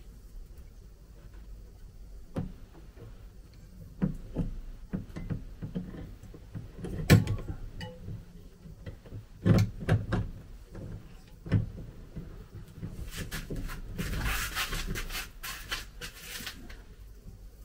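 Screws being driven by hand with a screwdriver into small pilot holes in a camper's wall panel. Scattered knocks and clicks come from the screwdriver and fittings being handled, then, about thirteen seconds in, a few seconds of scratchy crunching as a screw cuts its way into the material.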